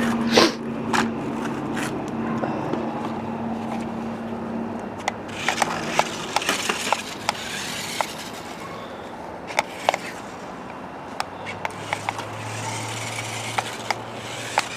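Toy remote-control stunt car driving back and forth: its small electric motors run while the tyres roll and scrape over the ground, with scattered clicks and knocks.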